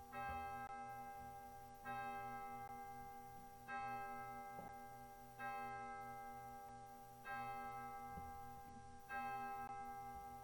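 A bell tolling one note over and over, a strike roughly every two seconds, six strikes in all, each ringing on and fading before the next.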